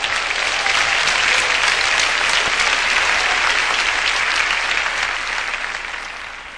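Large audience applauding in a big hall: the clapping swells up, holds steady for several seconds, then dies away near the end.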